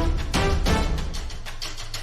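Music with a strong, punchy beat over a steady low bass note.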